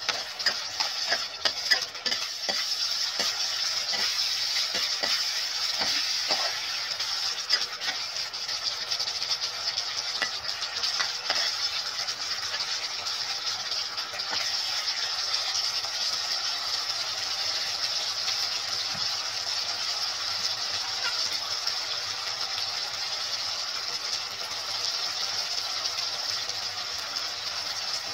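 Meatballs sizzling steadily in sauce in a frying pan, with a metal ladle clinking and scraping against the pan, often in the first dozen seconds and now and then after.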